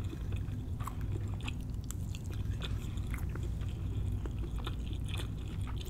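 A person chewing a mouthful of crab fried rice with the mouth closed, heard close up as many small wet mouth clicks and smacks over a low steady hum.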